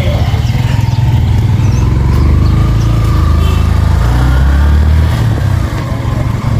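A motor vehicle's engine running, a loud low rumble that shifts in pitch and strength, strongest between about two and five seconds in.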